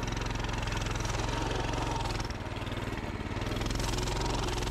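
Pit bike engine running at low revs while the bike is ridden through deep snow; the note eases slightly a little over two seconds in, then picks up again.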